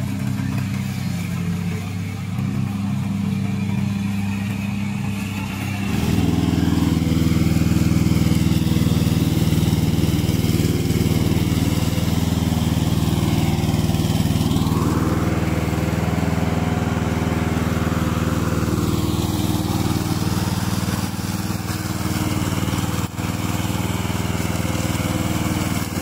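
Engine of a tracked remote-control slope mower running steadily under load as it cuts tall grass, getting louder about six seconds in.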